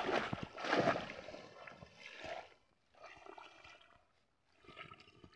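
Hands groping through water hyacinth and shallow water: water splashing and leaves rustling in irregular bursts, strongest in the first two seconds, then two shorter, fainter bursts with brief pauses between.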